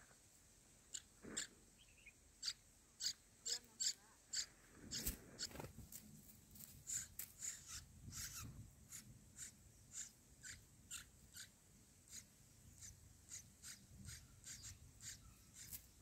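Faint, thin, high-pitched begging cheeps from bulbul nestlings, repeating about twice a second, with soft rustling of the nest around five and eight seconds in.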